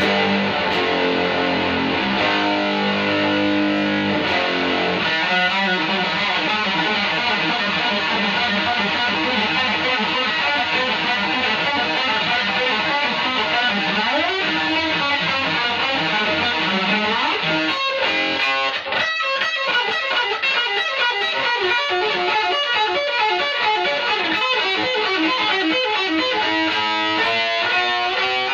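Distorted electric guitar, an Aria Pro Explorer, played through a home-built single-ended tube amp running 1930s AL4 and AF7 valves, heard through a phone's microphone: held chords for the first few seconds, then fast riffing and runs. The tone is heavily saturated, which the builder puts down to one tube being overdriven.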